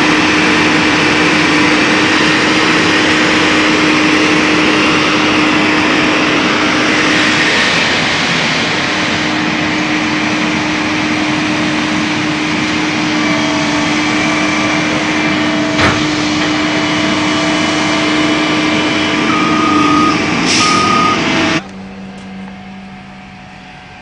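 Heavy diesel engines of the Gradall excavator truck and the tractor running loudly with a steady drone. A brief hiss comes near the end, and then the engine noise drops off suddenly.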